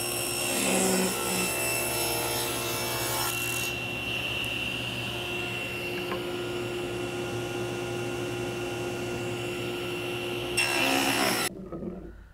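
Table saw running and ripping thin strips of solid cherry. It cuts at the start and again briefly near the end, with the blade spinning steadily in between, and the sound cuts off suddenly shortly before the end.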